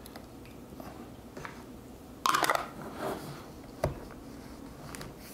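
Glass mason jars being handled on a counter while their lids are screwed on: a quick cluster of clinks and scrapes a little over two seconds in, then a single sharp click near four seconds, with a few faint ticks between.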